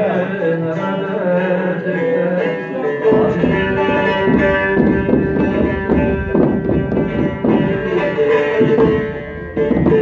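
Bağlama (long-necked Turkish saz) playing a semah tune. About three seconds in it changes to fast, driving strumming as the dance quickens.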